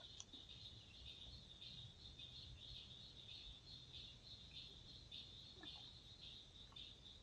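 Faint insect chorus: a high chirring that pulses about twice a second, with a couple of faint short calls mixed in.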